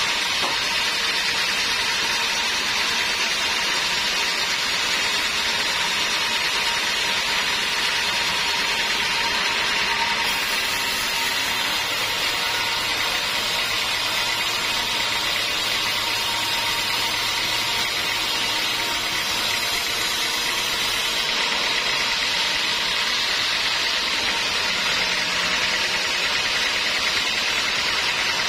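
Sawmill band saw running steadily, its blade cutting lengthwise through a squared teak beam. A brighter, higher hiss is added from about a third of the way in until about three quarters through.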